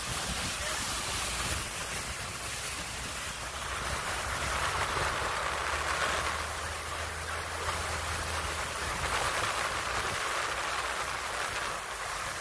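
A fishing boat running at speed: wind buffeting the microphone and water rushing past in the wake, over the low steady drone of the boat's engine.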